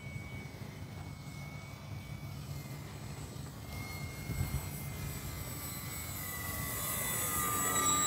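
Electric motor and propeller of a Flyzone Calypso RC sailplane, a thin steady whine in flight that grows louder over the last few seconds as the plane comes close overhead.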